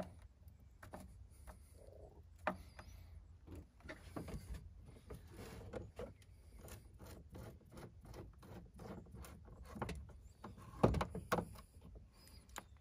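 Scattered light clicks and knocks of a flathead screwdriver tightening the hose clamps on a plastic engine air intake duct, with hands handling the air box; a couple of sharper knocks, one about two and a half seconds in and one near the end.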